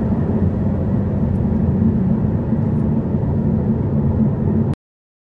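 Steady low rumble of a 2023 Ferrari 296 GTB heard from inside the cabin as it slows from high speed, engine, tyre and wind noise together with no rise in pitch. The sound cuts off abruptly near the end.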